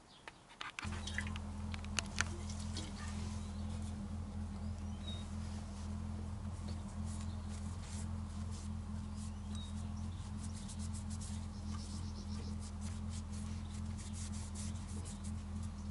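Small clicks, taps and scrapes of fingers handling a cast aluminium motorcycle ignition-lock bracket. A steady low hum comes in about a second in and is the loudest sound throughout.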